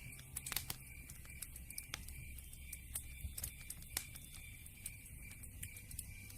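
Campfire crackling: irregular sharp pops and snaps, some louder than others, over a low rumble of the fire. A faint high chirp repeats steadily about four times a second behind it.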